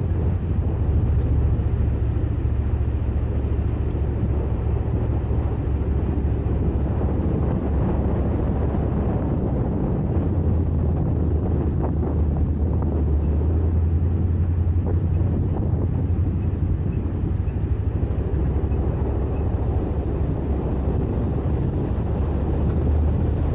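Raptor driving a dirt trail: a steady low rumble of engine and tyres, with wind buffeting the microphone.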